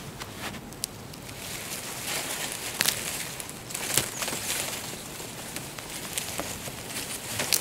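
Dry common reed stalks rustling as they are grabbed and pulled by hand, with several sharp snaps as stems break.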